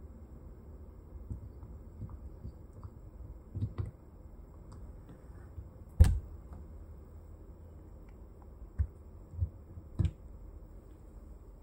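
Small plastic figure pieces clicking and knocking as sections of a miniature tree are fitted together and set down on a tabletop: a handful of separate sharp clicks, the loudest about six seconds in.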